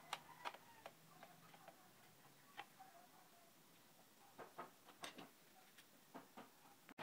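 Faint, irregular clicks and taps of a screwdriver and fingers on an electric fan's plastic back motor casing as the back-cover screw is driven home.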